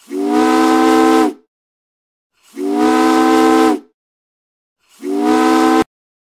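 A ship's horn sounding three blasts, each a chord of several tones, the last one shorter and cut off suddenly.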